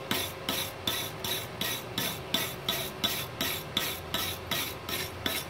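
Steel wire brush scrubbed back and forth over flux-core (gasless MIG) weld beads on steel plate, about four scraping strokes a second, clearing off the flux slag.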